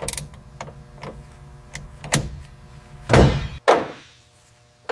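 A few light clicks and knocks, then a heavy thunk of a car door shutting about three seconds in, after which a steady background hum cuts off.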